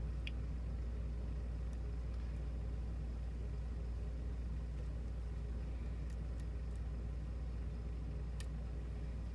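Steady low background hum with a few faint, light metallic ticks of a lock pick working the pin stacks of a pin-tumbler lock, three of them close together partway through.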